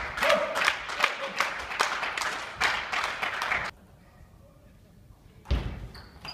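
Scattered hand clapping and indistinct voices in a sports hall, cut off abruptly about two-thirds of the way in. Near the end, a single heavy thud.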